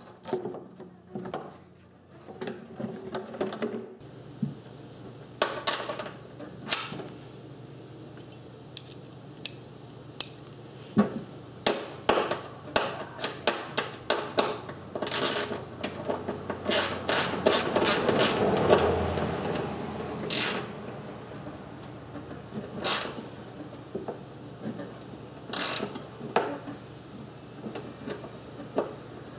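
Irregular clicks and knocks of hand tools and the hard plastic grass-catcher chute being worked against a riding mower's deck, with a quick run of clicks about two-thirds of the way through.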